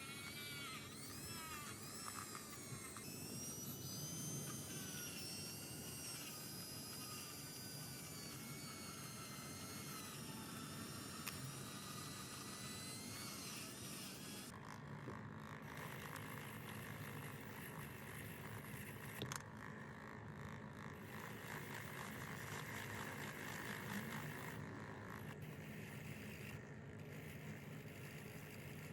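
A small electric motor whirring at a varying speed. Its pitch glides up and down over the first few seconds, then it runs steadier. There is one sharp click about two-thirds of the way through.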